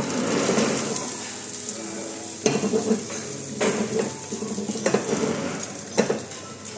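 An omelette sizzles steadily in a frying pan on a gas burner. Four sharp metallic clinks and clatters of the pan and utensils break in about a second apart through the second half.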